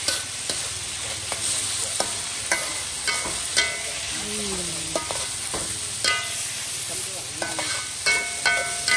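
Metal spatula scraping and clanking against a steel wok as bamboo shoots in soy sauce stir-fry over a steady sizzle. Each strike makes the wok ring briefly. The strikes come irregularly, with a cluster of loud ones near the end.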